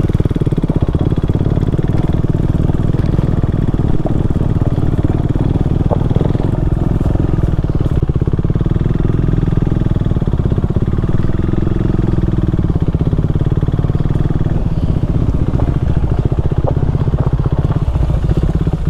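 KTM 390 Duke's single-cylinder engine running steadily on the move, a dense, even pulsing.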